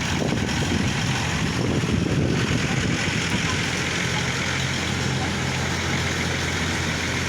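A large bus engine idling steadily with a low hum.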